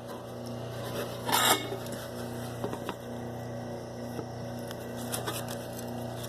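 Objects being handled and knocked about, with one brief clatter about a second and a half in and a few light clicks after it, over a steady low hum.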